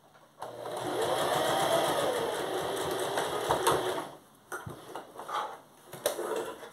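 Electric home sewing machine stitching a straight seam, its motor pitch rising and falling, stopping about four seconds in. A few short clicks and rustles follow as the fabric is handled at the machine.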